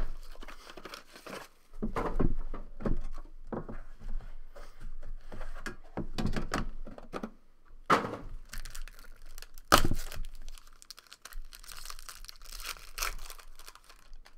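A plastic wrapper crinkling and tearing as a trading card box is handled and opened, with several sharp knocks of the box against the table, the loudest at the very start and about ten seconds in.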